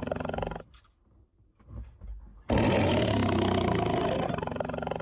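Tiger roaring: one roar cuts off sharply about half a second in, and after a pause of about two seconds a second long roar starts abruptly and runs on, looking like the same roar repeated.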